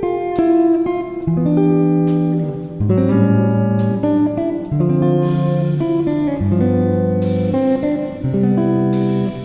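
Background music: a plucked guitar tune with notes and chords changing every second or so.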